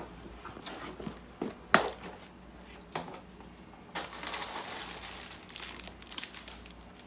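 Plastic candy bag (a bag of Reese's Pieces) crinkling as it is handled, with a few sharp knocks beforehand, the loudest a little under two seconds in.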